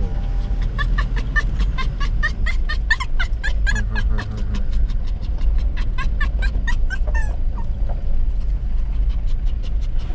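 A toy poodle giving a rapid run of short, high yips, about three or four a second, from about a second in until about seven seconds in, over a steady low rumble.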